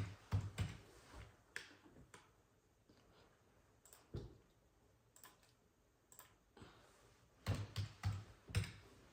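Computer mouse and keyboard clicks, irregular and in small clusters, as dimensions are entered in a CAD program.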